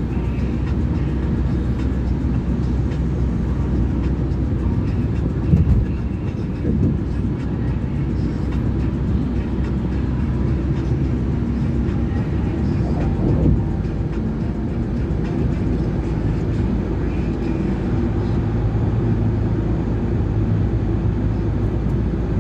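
Steady low rumble of a vehicle in motion, with brief louder knocks about five and a half and thirteen and a half seconds in.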